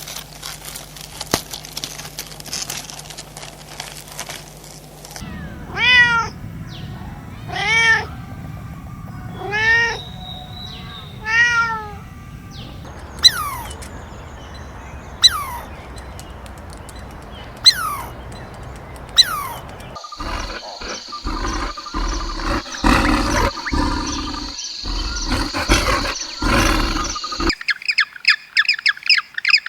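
A run of animal calls: four drawn-out calls that rise and fall in pitch, about two seconds apart, then four sharp falling chirps. After that comes a noisy stretch with a steady high tone and knocking, and near the end rapid repeated squawks.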